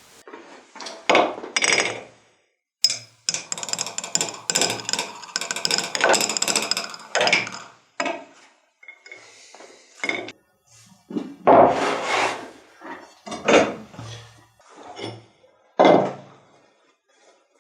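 Metal knocking and clinking at an irregular pace, with a dense run of quick, ringing clinks in the first half and a few louder separate knocks later.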